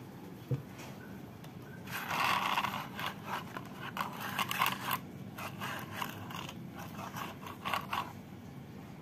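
Rustling, scraping handling noise as the light meter and phone are moved about: one dense scrape about two seconds in, then irregular short scrapes and rubs until near the end.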